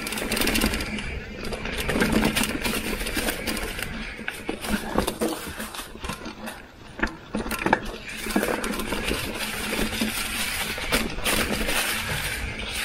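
Mountain bike riding over a leaf-covered dirt trail: tyres crunching through dry fallen leaves, with the bike's frame and parts rattling and knocking over bumps and the Industry Nine rear hub buzzing as it freewheels. A couple of sharper knocks come a little past the middle.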